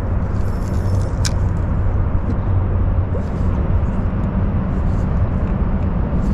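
Steady low hum over a rumbling noise bed, with a sharp click at the start and another a little over a second in.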